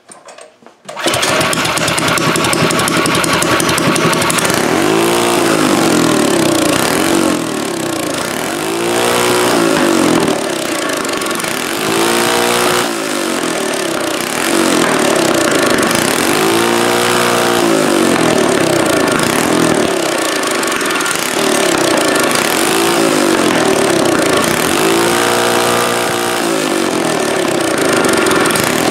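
Modified Predator 212cc single-cylinder engine with a 22 mm carburetor and an aftermarket muffler starting about a second in, then running loud and being revved up and back down several times. The builder judges that it is running lean.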